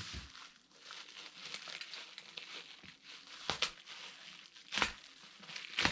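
Crinkling and rustling of paper and plastic as a large old photo album is handled, with a few short sharp clicks or knocks in the second half.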